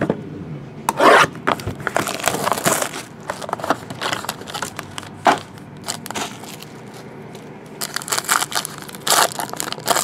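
A foil trading-card pack wrapper being crinkled and torn open by hand, in irregular crackling rustles that come in several bursts. The cardboard box it came out of is also being handled.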